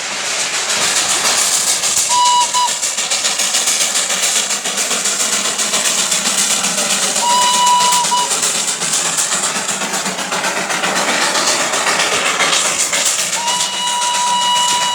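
Darjeeling Himalayan Railway toy train passing with a steady hissing rush, its whistle sounding three times: a short toot about two seconds in, a longer one about halfway, and a long blast near the end.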